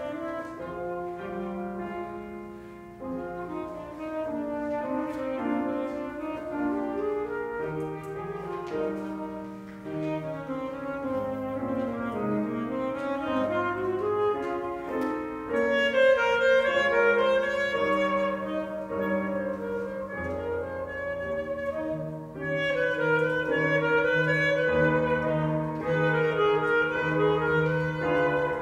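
Saxophone and piano duet: the saxophone plays a melody of held notes over piano accompaniment, growing louder about halfway through.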